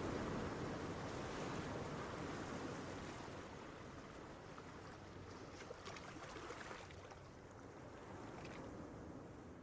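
Gentle ocean waves washing onto a beach, with a steady surf hiss and faint fizzing of foam, fading gradually lower.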